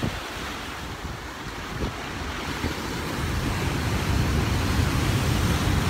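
Sea waves washing in and breaking against shoreline boulders, with wind buffeting the microphone. The surf grows louder in the second half.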